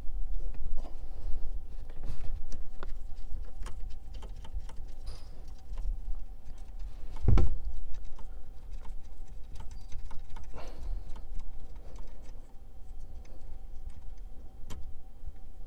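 Irregular light clicks and scratches of a socket tool and gloved fingers working loose the 10 mm mounting nuts of a car audio amplifier, with one louder knock about seven seconds in.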